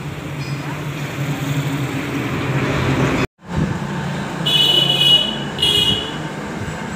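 Road traffic with a steady engine hum. After a brief dropout midway, a vehicle horn sounds twice.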